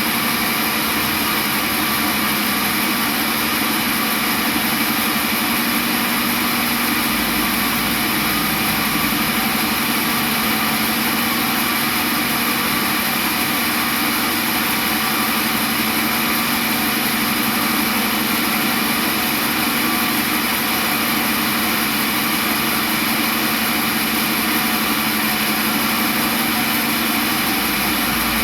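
Sawmill machinery running steadily, a constant mechanical drone with hiss that does not change.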